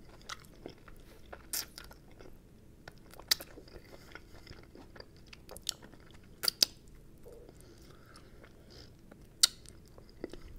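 Close-miked chewing and mouth sounds as a fried chicken wing is stripped of its meat off the bone, with a few sharp wet clicks every second or two, the loudest about nine seconds in.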